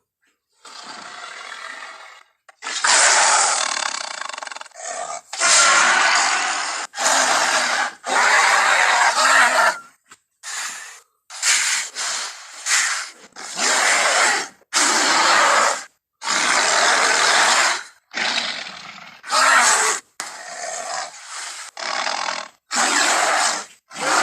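King Kong giant-ape creature sound effects: more than a dozen loud roars and grunts played one after another, each about a second long, with short silences between.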